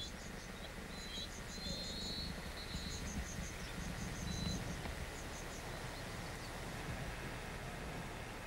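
Outdoor ambience of small birds chirping in short, high, wavering phrases, with groups of rapid high ticking calls, over a low steady rumble. The chirping thins out about halfway through.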